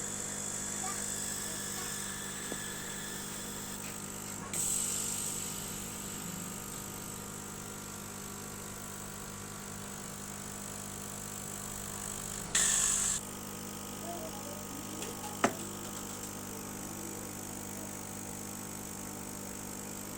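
Homemade 60-watt CO2 laser cutter running as it cuts thick acrylic, a steady machine hum with a high hiss. Two short, louder hissing bursts come about 4.5 and 12.5 seconds in, and a single sharp click about 15 seconds in.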